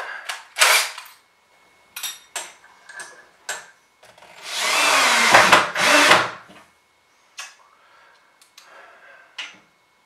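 Cordless drill at the underside of a handrail's wall bracket, screwing the bracket to the wooden rail. It runs in a few short trigger bursts, then for about two seconds in the middle with its motor pitch rising and falling, then gives a few more short bursts near the end.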